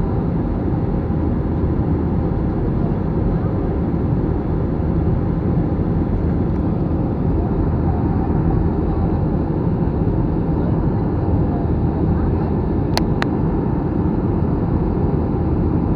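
Steady engine and airflow noise of an Airbus A321 in flight, heard from inside the passenger cabin, with two quick clicks about thirteen seconds in.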